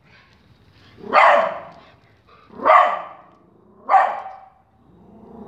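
A dog barks three times, about a second and a half apart, each bark short and loud.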